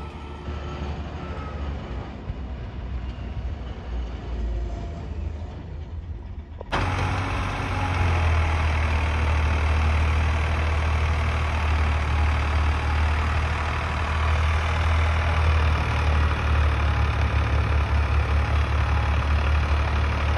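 Farmtrac tractor's diesel engine working steadily under load as it hauls a full grain trolley over soft ploughed field, a deep steady drone with a strong low hum. For the first several seconds an engine runs more quietly, then the louder pulling note starts abruptly about seven seconds in.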